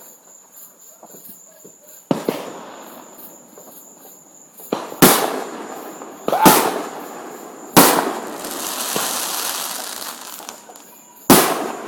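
Fireworks going off in the neighbourhood: five sharp, loud bangs spread across a few seconds, each dying away slowly. The bang about eight seconds in is followed by a long crackling hiss. Crickets chirp steadily underneath.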